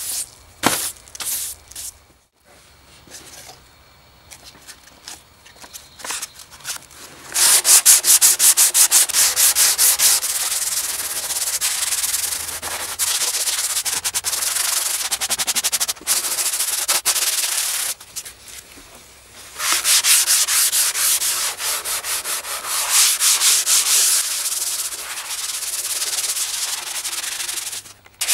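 P180 sandpaper rubbed by hand over the weathered wood inside an old hollowed-out wooden trough: fast back-and-forth rubbing strokes, after a few short brush sweeps at the start. Partway through, the sanding pauses for about a second and a half, then goes on.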